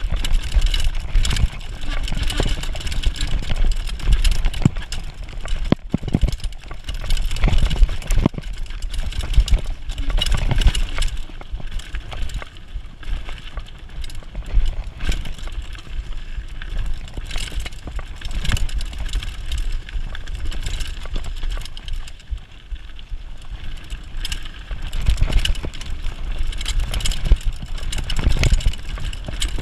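Mountain bike riding fast down a dirt forest trail, heard through a bike-mounted GoPro: wind rumbling on the microphone, with continual knocks and rattles from the bike as it runs over bumps.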